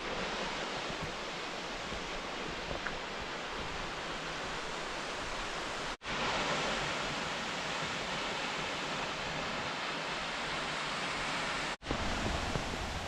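Steady rush of a waterfall, Drake Falls, broken by two brief dropouts where the footage cuts, midway and near the end. After the second cut some wind rumbles on the microphone.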